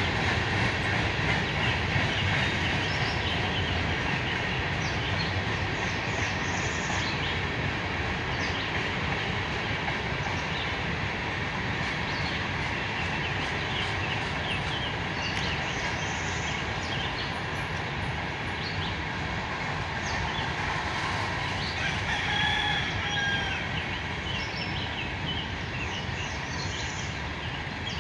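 Freight train of tank cars and hopper cars rolling past with a steady rumble and rail noise. About three-quarters of the way through, a rooster crows once.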